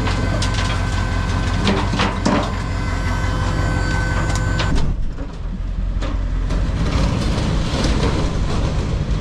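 A heavy vehicle running steadily with rattling and knocking over the rumble. The sound changes abruptly about five seconds in.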